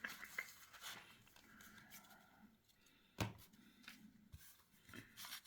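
Near silence with faint rustling of trading cards being handled and a single sharp tap about three seconds in.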